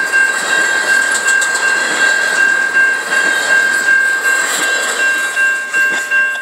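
The last double-stack freight cars of a Norfolk Southern train roll over the rails with a steady clatter and rush, fading as the end of the train clears the crossing. Throughout, a railroad crossing bell rings at about two strikes a second, its dings standing out more clearly near the end.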